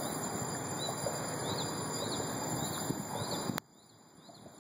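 A small bird chirping repeatedly, a short high chirp about twice a second, over a steady rushing outdoor background noise. About three and a half seconds in a click cuts the background down sharply, and the chirps carry on faintly.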